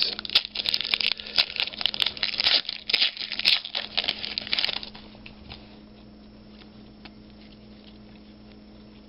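Foil trading-card pack wrapper being torn open and crinkled: about five seconds of dense crackling with sharp clicks, then it stops and only quiet room tone remains.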